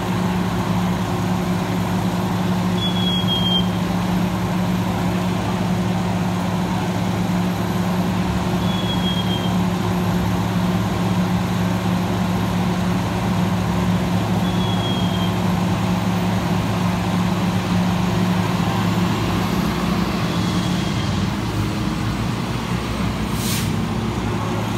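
Parked fire trucks' diesel engines running steadily, the engine note unchanging throughout. A short, slightly falling high chirp repeats about every six seconds, and a single sharp tick comes near the end.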